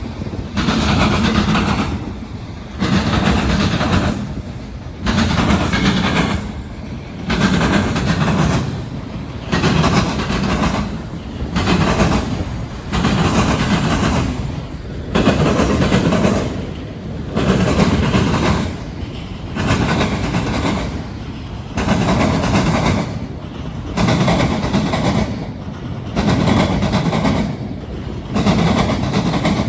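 Wheels of CSX auto rack cars pounding over railroad diamonds (flat track crossings), a loud rhythmic clatter that repeats about every two seconds as each car's wheels cross.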